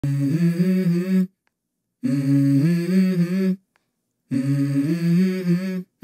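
Music: a voice humming a slow melody in three phrases of held notes that step in pitch, each about a second and a half long, with short silences between.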